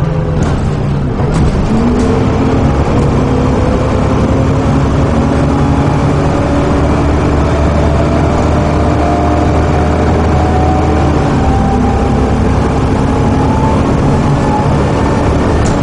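Volvo B7TL double-decker bus engine and drivetrain heard from inside the upper deck while under way. The pitch rises steadily for about nine seconds as the bus accelerates, drops sharply about eleven seconds in at a gear change, then climbs again.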